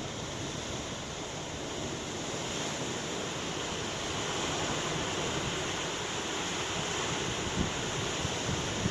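Ocean surf washing in a steady roar of noise that swells a little toward the middle, with wind along the shore. Near the end a couple of brief low thumps of wind hit the microphone.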